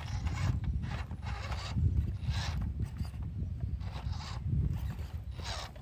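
WPL RC crawler's small electric motor and gearbox whirring in short, irregular throttle bursts as it crawls over rock, over a steady low rumble.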